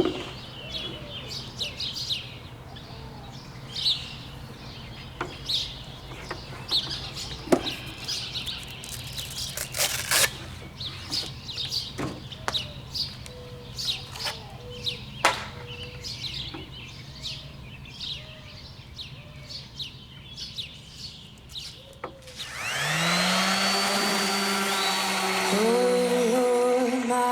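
Small birds chirping over a steady low hum, with a few sharp clicks. About 22 seconds in, music swells in with sustained chords and becomes the loudest sound.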